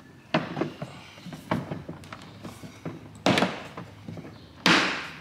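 Aftermarket rear diffuser being pushed by hand up into a Dodge Charger's rear bumper to seat it: several knocks and thuds as it is forced into place, the loudest near the end.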